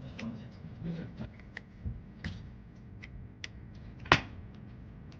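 Light, irregular clicks and taps of a Suzuki HU87 car door lock cylinder being taken apart by hand, with one sharper click about four seconds in.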